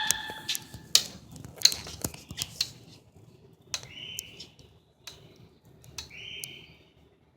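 Birds calling: one pitched call at the start, then two short calls about four and six seconds in, with a run of sharp clicks and taps over the first three seconds.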